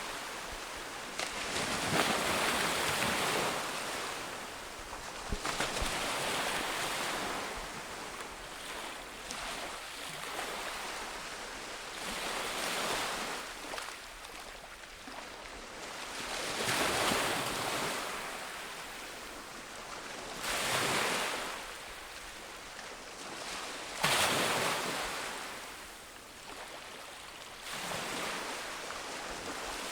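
Ocean waves breaking on a beach, the surf swelling and washing back every few seconds, with one sharper crash near the end.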